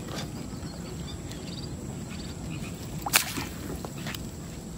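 Cast net being hauled in by its rope through the water, with quiet handling and water noise and one sharp slap about three seconds in.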